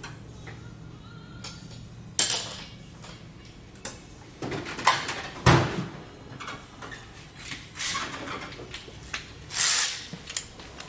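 Irregular clicks, knocks and short scrapes of hand tools being handled over a faint low hum.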